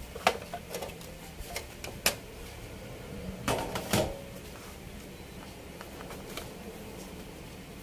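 Sheet-metal top cover of a Sony DVD home theater unit being handled and lifted off: a few sharp metallic clicks and taps, then a louder clatter of knocks about three and a half seconds in.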